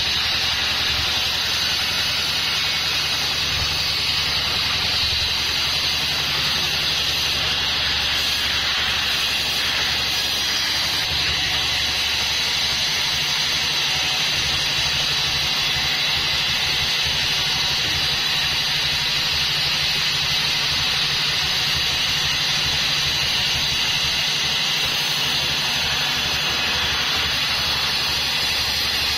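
36-inch band sawmill running steadily, its blade cutting lengthwise through a Bayur log with a constant hiss over the low hum of the saw's drive.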